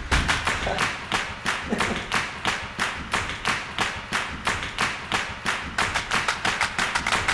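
Background music in a stretch carried by percussion: a fast, even beat of sharp hits, about five a second.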